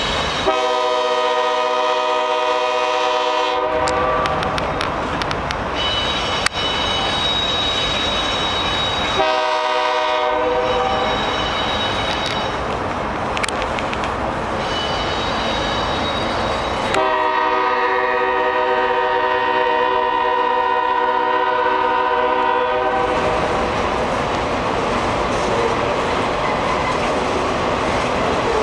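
A Canadian Pacific freight locomotive's air horn sounds three blasts: a long one, a short one, then a longer one. Under it runs the steady rumble and clatter of freight cars rolling past, with a thin high wheel squeal between the blasts.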